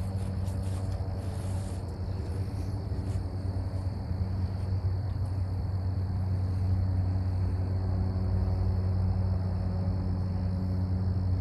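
Steady mechanical hum with even overtones, like a motor running, under a thin steady high tone. A few light clicks come in the first two seconds, and the hum grows slightly louder about halfway through.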